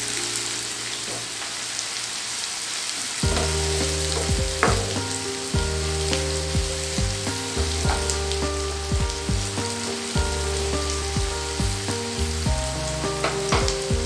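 Chopped onions sizzling in hot oil in a nonstick wok, just beginning to fry, with a spatula scraping and tapping the pan now and then. From about three seconds in, soft background music with held notes plays over it.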